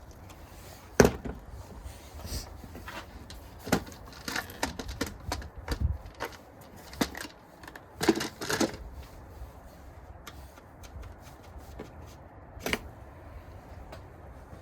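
Irregular clicks and knocks of hands and tools working on a car's air intake hose, the loudest about a second in.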